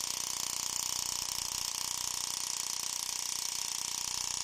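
Small bare full-range speaker driver driven hard on a bass test signal at large cone excursion, giving a steady fast fluttering rattle and hiss rather than a deep tone.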